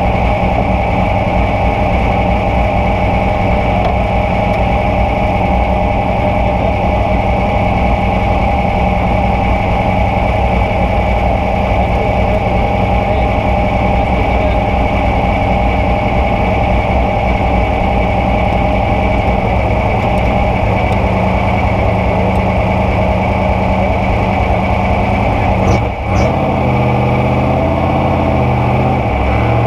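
Trophy Truck's 900 hp engine idling steadily, heard from inside the cab. Near the end there is a short clunk, and the engine note then wavers as the truck starts to roll.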